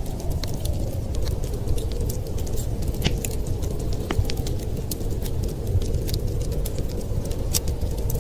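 Wood fire crackling, with irregular sharp pops and snaps several times a second over a steady low rumble.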